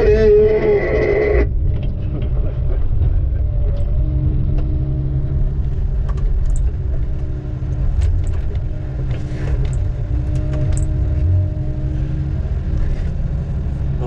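Diesel engine of heavy logging equipment running steadily with a low rumble. A brief wavering voice is heard at the start and stops about a second and a half in.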